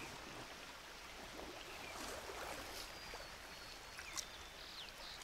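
Faint water sounds of hands feeling about in shallow, muddy creek water: soft sloshing and trickling with small splashes.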